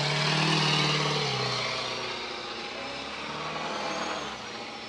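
Pickup truck doing a donut on asphalt: the engine runs at high revs with the tyres spinning. The engine note swells in the first second, then drops away, leaving a steady rushing noise.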